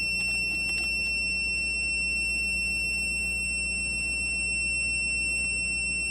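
The buzzer of an Aicevoos 1288F clamp meter gives one unbroken, high-pitched electronic tone. The meter keeps beeping like this while it is in temperature-measurement mode with the thermocouple adapter plugged in.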